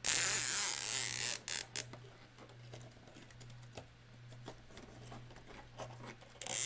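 A nylon zip tie is pulled tight through its ratchet head with a loud rasping zip lasting about a second and a half, then given two short tugs. Faint clicks of handling follow, and another short zip comes near the end.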